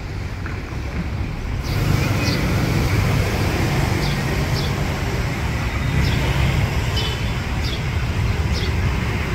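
Steady city street traffic noise: the low rumble of passing cars and motorbikes. It jumps louder about a second and a half in, and short high chirps recur in pairs every second or so.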